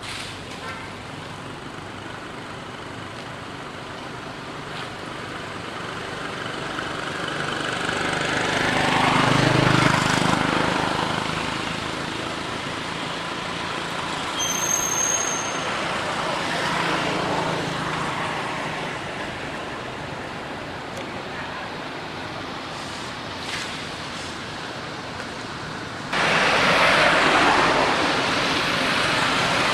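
Outdoor traffic noise: vehicles pass, swelling and fading about ten seconds in and again a few seconds later, and a louder stretch of the same noise starts suddenly near the end.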